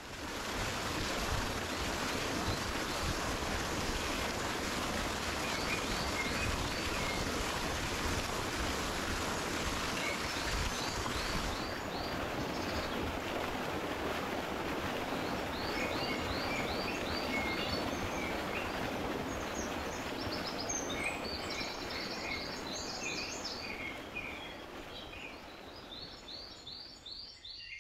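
Outdoor ambience: a steady rushing background with birds calling in repeated runs of short high chirps, the whole fading down over the last few seconds.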